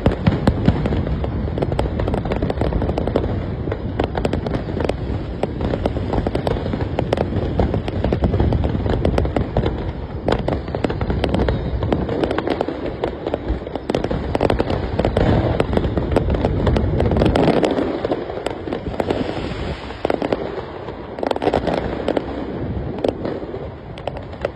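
Fireworks display going off: a dense, continuous run of booming bursts and crackling, easing a little in the last few seconds.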